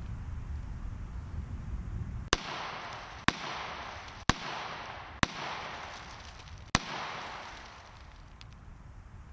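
Five shots from a Taurus PT111 G2 9 mm pistol, about a second apart with a longer pause before the last, each echoing off the woods.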